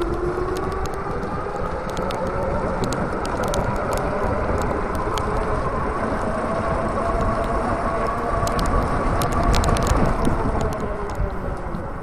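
Electric bike's motor whining while riding, the whine rising in pitch as it speeds up and dropping as it slows near the end. Heavy wind and road noise and scattered light clicks run under it.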